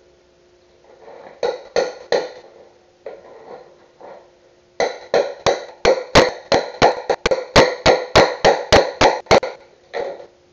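Hand hammer striking at a plank: three blows about a second and a half in, then a fast run of about twenty blows at roughly four to five a second, and one more blow near the end.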